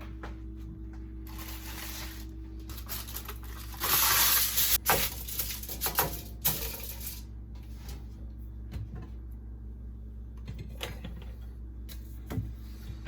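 Rustling and light clattering of kitchen items being handled, with the loudest burst of rustling about four seconds in and a few sharp clicks.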